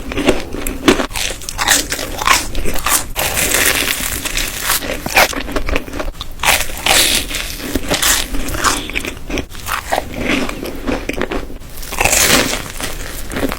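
Close-miked bites and chewing of a crispy chocolate donut: a dense run of crisp crunches, one after another.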